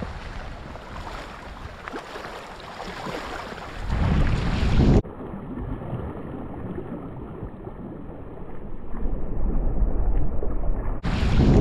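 Wind buffeting the microphone in gusts, over small waves washing against a stony lakeshore. The gusts are strongest about four seconds in and again near the end.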